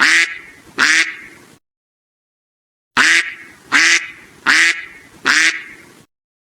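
Duck quacking: two harsh quacks, a pause of about a second and a half, then four more in an even run.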